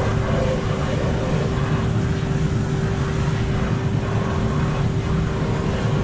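Portable electric concrete mixer running, with a steady motor hum over a low rumble from the turning drum.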